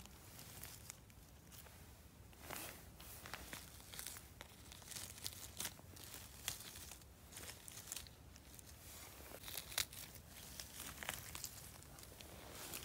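Faint rustling and crinkling of moss and dry fallen leaves as a hand picks yellowfoot mushrooms, with scattered small crackles and snaps at irregular moments.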